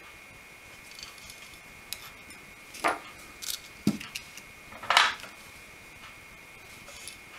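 Small hand tools clinking and being set down on a workbench: several short clicks and knocks in the middle, the loudest at about five seconds in.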